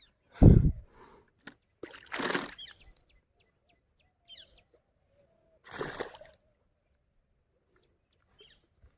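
A loud low thud about half a second in, then two short splashes in water about three and a half seconds apart, with small birds chirping faintly throughout.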